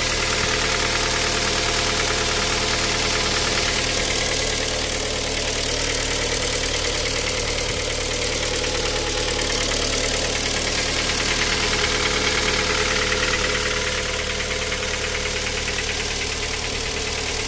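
Car engine idling from a cold start with a steady, even knocking, a knock heard only while the engine is cold.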